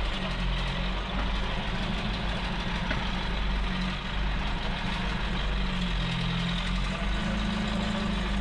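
Vintage truck's engine running at low revs as the truck moves slowly, a steady low drone.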